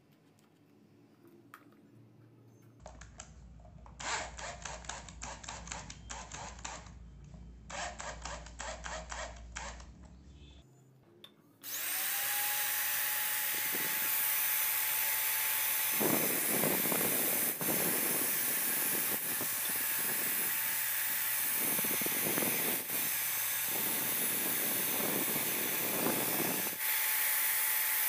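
Two bouts of quick rhythmic scraping strokes over a low hum. Then an electric power tool spins up with a rising whine and runs steadily, loudening in repeated bouts as it bites into the work.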